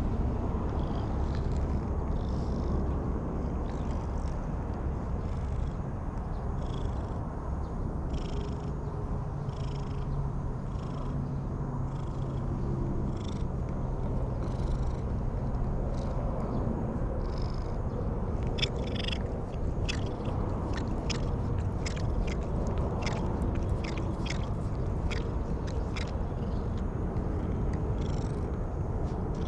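Orange-and-white cat purring while being stroked. In the second half it licks a hand with its rough tongue, a quick run of rasping licks.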